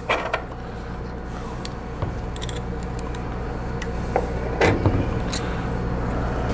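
Light metallic clicks and ticks of a hex key and small machine screws being worked loose from a mill's Z-axis column, with a slightly louder clatter about three-quarters of the way through. A steady low hum runs underneath.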